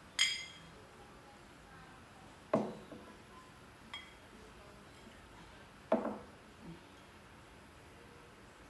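Tableware clinking and knocking: a bright ringing clink of a spoon against a drinking glass just after the start, then duller knocks of dishes on a wooden table about two and a half and six seconds in, with a fainter clink between.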